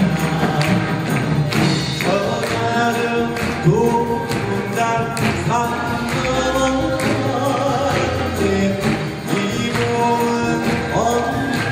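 A male Korean folk singer (sorikkun) sings a melody with gliding, ornamented notes into a microphone. He is accompanied by a Korean traditional orchestra of gayageum zithers, bamboo flutes and other instruments, with frequent percussion strokes.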